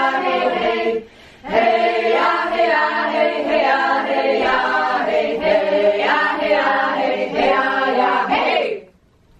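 A group of women singing together a cappella, a chant-like song in many voices. The singing breaks off briefly about a second in, resumes, and ends shortly before the end.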